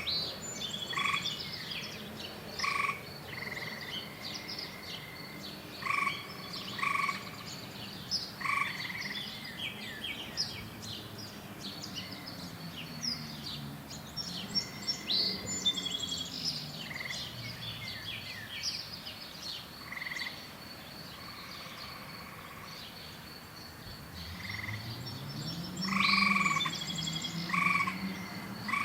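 Frogs croaking in short, repeated calls about once a second, over many birds chirping and a steady high insect drone.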